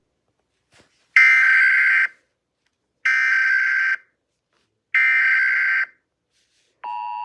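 US Emergency Alert System alert: three one-second bursts of the SAME digital header tones, about two seconds apart, then the steady two-tone attention signal (853 and 960 Hz) starts near the end.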